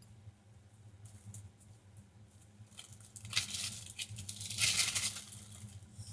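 Plastic bag crinkling and rustling as putty is squeezed out of it, loudest from about three to five seconds in.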